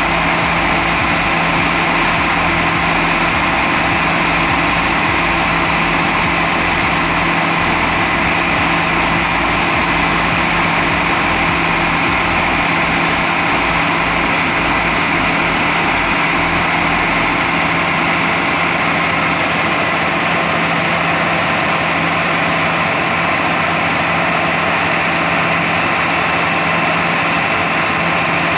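Yanmar AW6120 combine harvester running steadily while its unloading auger conveys harvested rice grain into a truck.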